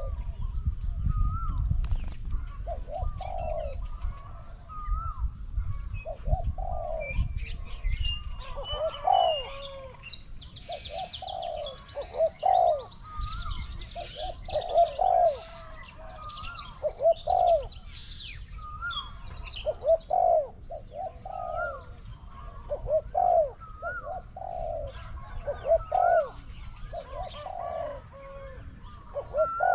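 Spotted doves cooing: a steady series of low, rolling coo phrases repeated every one to two seconds, the call of a decoy dove used to lure wild doves. Small birds chirp faintly behind.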